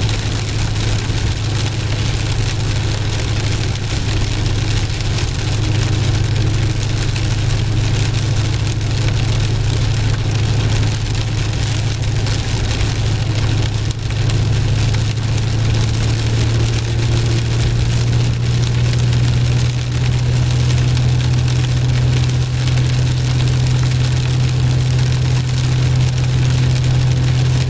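Inside a Pontiac Firebird cruising at highway speed in heavy rain: a steady low engine drone, edging up slightly in pitch about two-thirds of the way through, over an even hiss of tyre noise on wet road and rain hitting the windshield and body.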